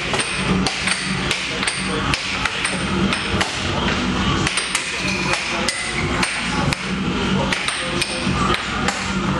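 Air hockey game in play: the plastic puck clacking sharply off the mallets and the table's rails, several irregular clacks a second, over a steady low hum.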